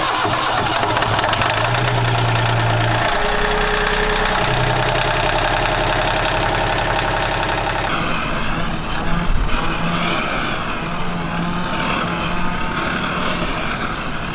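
Sailboat's inboard marine diesel engine running at a fast idle just after starting, heard close up from its open engine compartment. About eight seconds in it is heard from outside at the stern, the wet exhaust pulsing and spitting its raw-water cooling flow, which splashes onto the sea.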